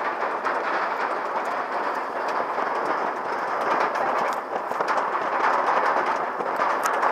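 Leviathan's steel roller coaster train climbing its cable lift hill: a steady, noisy rolling sound from the lift and the wheels on the track, with a few faint clicks.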